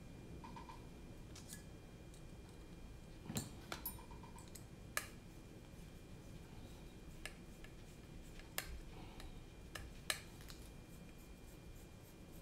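Light, scattered clicks and taps of carbon-fibre drone frame parts, standoffs and hex screwdrivers being handled during assembly, about half a dozen sharp ticks over a low background.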